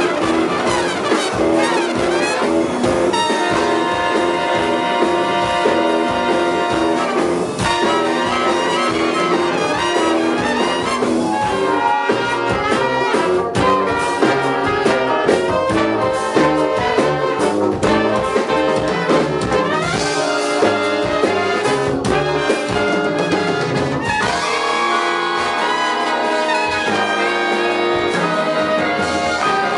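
Live big band playing a jazz-fusion piece: trumpets and trombones in full ensemble chords over drums and bass, with woodwinds in the mix.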